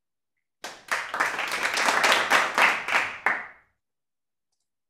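Brief clapping: a quick run of claps for about three seconds, starting about half a second in and tailing off.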